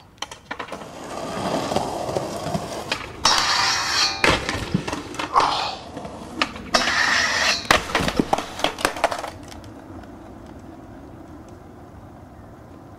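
Skateboard wheels rolling, with a string of sharp clacks from the board popping and landing and two loud scraping stretches in the middle; it all stops about nine seconds in.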